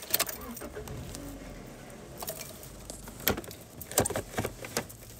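Several sharp clicks and small rattles inside a car, as things such as keys and fittings are handled, with the loudest clicks about three and four seconds in.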